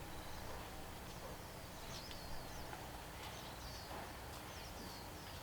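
A bird calling: a run of short, high, downward-sweeping chirps repeated every half second or so, starting about two seconds in, over a faint steady outdoor background.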